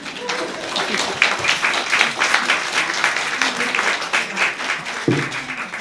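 Audience applauding at the end of a poetry reading, the clapping starting within the first half second and building to a steady, dense patter.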